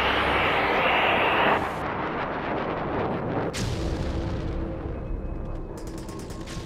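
Artillery fire and gunfire: a loud, dense burst of firing for about the first second and a half, then a sharp bang about three and a half seconds in, followed by rumbling.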